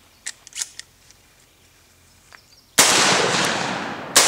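A few light clicks of magnum shells being loaded into a Derya Lion Trap semi-automatic 12-gauge shotgun, then two loud shots about a second and a half apart, each with a long echoing decay. The loads are 3-inch, 1 3/4-ounce high-brass magnums.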